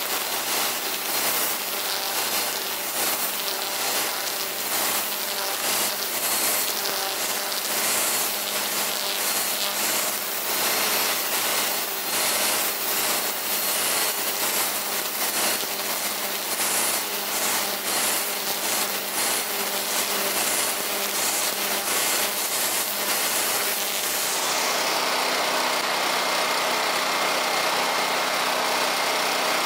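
Electric string trimmer whirring and cutting grass in uneven swishes, over the steady running of a 3.6 kVA Nagano gasoline generator that is powering it under about 1200 W of load. About three quarters of the way through the trimmer stops and the generator runs on alone, smooth and steady.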